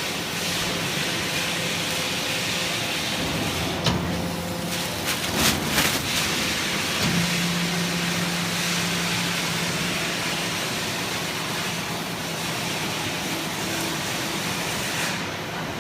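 Rice husk baling machine running: a steady mechanical noise with a constant hum, broken by a few sharp knocks about four to six seconds in.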